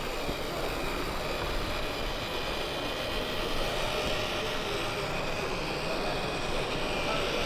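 Steady mechanical drone with faint whining tones.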